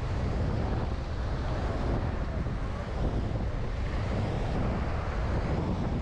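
Wind blowing on the microphone, a steady low rumble, over the wash of surf breaking on the beach.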